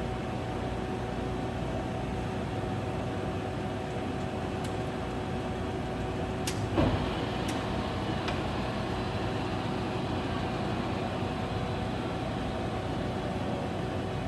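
Clausing-Colchester Model 25 engine lathe running its spindle steadily through the geared headstock: an even tone over a steady hum, with a single sharp knock about seven seconds in.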